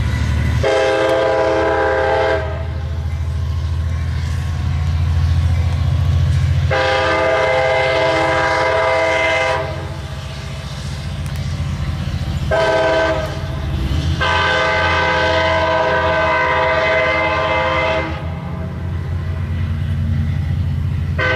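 Nathan K5LA five-chime air horn on an F59PH diesel locomotive sounding the grade-crossing signal: long, long, short, long. Under it the locomotive's diesel engine keeps up a steady low drone as the train departs.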